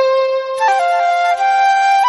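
Background music: a flute melody played over a steady held drone note, the melody moving through several notes from about half a second in.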